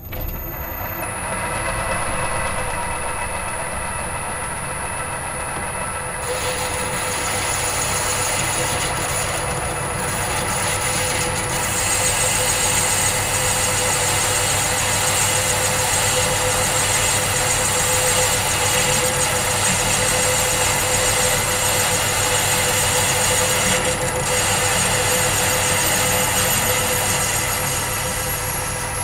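Small metal lathe switched on and running steadily, its motor and gear train giving a constant whine with several fixed tones. A hand-held tool is worked against the spinning part, adding a rougher, hissing cutting noise from about six seconds in.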